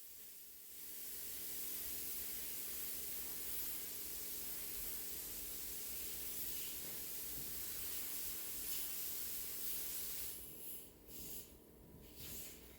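Spray gun hissing steadily as it sprays paint reducer over the edge of fresh clear coat to melt it in before buffing. It stops about ten seconds in, then gives a few short hisses.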